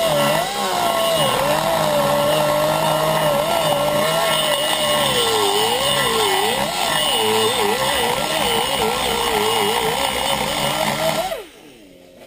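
Pneumatic die grinder porting the aluminium exhaust port of a 4.7 V8 cylinder head. Its high running tone wavers and dips as the bit loads against the metal. About eleven seconds in it shuts off and winds down with a falling pitch.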